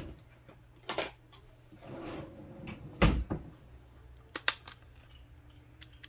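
Handling of a pocket digital multimeter in its hinged plastic case, which is being picked up and opened. There is a sharp click about a second in, a louder thump about three seconds in and two quick clicks a little later, over a low steady hum.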